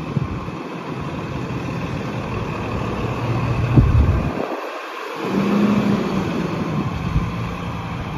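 Fire engine's diesel engine running as the truck pulls out of the station bay, then revving up louder about five seconds in as it accelerates onto the road.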